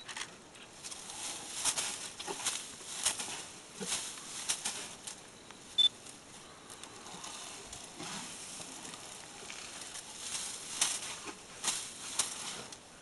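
African bush elephant feeding close by, its trunk tearing at grass and leafy shrubs: irregular rustling, crackling and snapping of vegetation. A single short, sharp high chirp about six seconds in.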